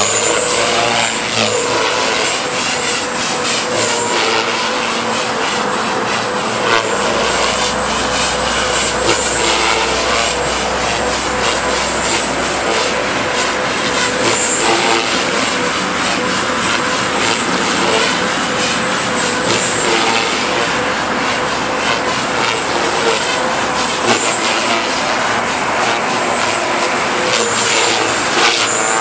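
JR Forza 450 electric radio-controlled helicopter flying aerobatics: a steady high whine with the buzz of its spinning rotors, holding a constant pitch with small swells as it manoeuvres.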